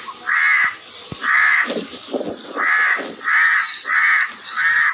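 A crow cawing repeatedly: about six harsh caws in a row, evenly spaced.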